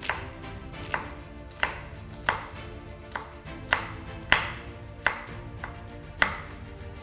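Kitchen knife dicing a red bell pepper on a chopping board: sharp knife strikes against the board, about one every two-thirds of a second, over quiet background music.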